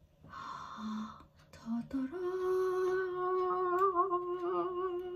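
A woman's voice singing one long held note, as in a "ta-da" reveal, with a slight wobble near the middle. It is preceded by a short breathy sound.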